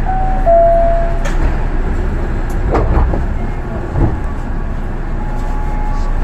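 Osaka Monorail train running along its guideway: a steady low rumble with a few knocks as it passes joints. An electric-motor whine steps down in pitch in the first second, and another whine comes in near the end.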